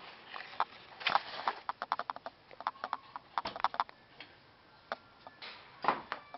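A small dog's claws clicking irregularly on a hard floor, in quick clusters of taps with a short pause near the middle.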